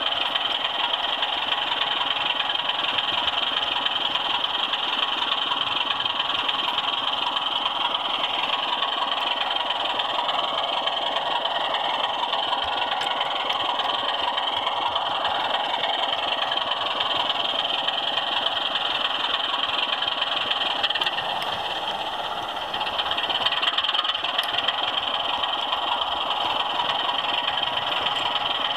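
Steady whirring running noise of an OO-scale model train, heard from the camera truck riding on it: its wheels rolling on the rails and the small electric motor of the locomotive that moves it. It goes briefly quieter a little past the middle.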